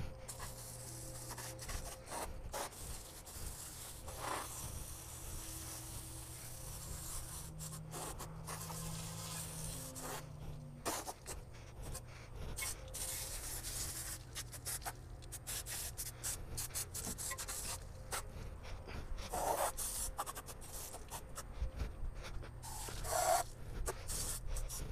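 Water spraying from a pistol-grip garden hose nozzle onto a dirt bike and the ground: a steady hiss, broken by several brief pauses.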